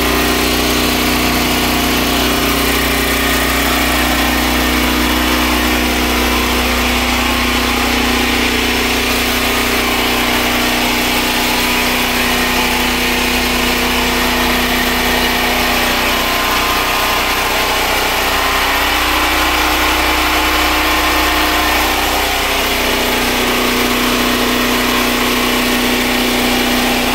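Machinery running steadily with a constant motor hum; its pitched tone weakens for a few seconds in the second half, then returns.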